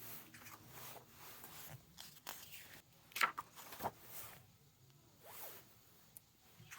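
Faint rustling and scraping of unboxed items and packaging being handled, with a few sharper zip-like scrapes about three to four seconds in.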